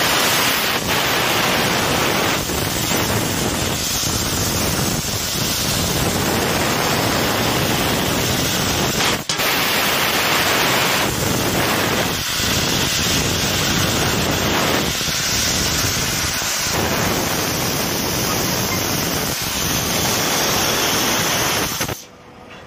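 2 kW fiber laser cutting machine cutting 5 mm stainless steel plate: a loud, steady hiss of the assist-gas jet at the cutting head, with a brief break about nine seconds in. It cuts off abruptly near the end as the cut finishes.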